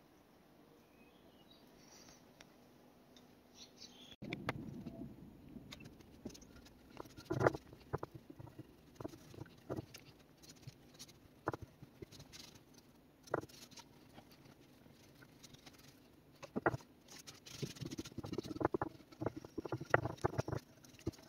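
Gloved hands rubbing wood stain into a drilled pine tray with a rag: irregular scuffing and rubbing with scattered light knocks, starting about four seconds in after a stretch of near quiet.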